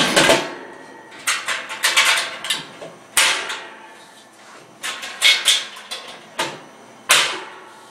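Metal lid of a ProQ Amigo smoker set onto the stack and its latches fastened: a string of sharp metallic clunks and clicks in clusters, some with a short ring.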